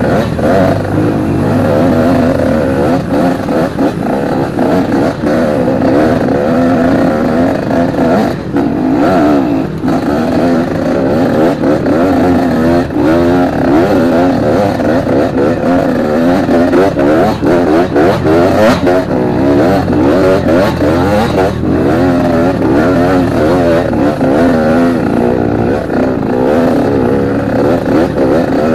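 Trail motorcycle engine running under constant throttle changes, its pitch climbing and dropping again and again as it is ridden.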